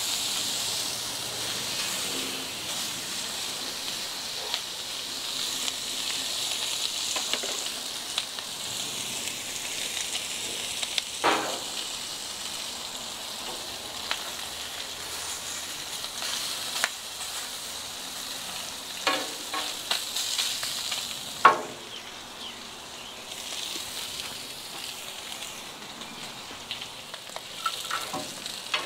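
Slices of smoked beef chuck sizzling steadily on a hot Blackstone 36-inch flat-top griddle. Now and then a sharp clack of metal spatulas striking the steel griddle top, the loudest about two-thirds of the way through.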